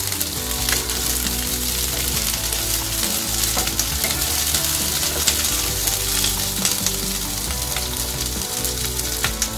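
Chunks of onion sizzling in hot oil in a nonstick kadai, fried lightly to soften, while a plastic spatula stirs them with scattered light scrapes and taps against the pan.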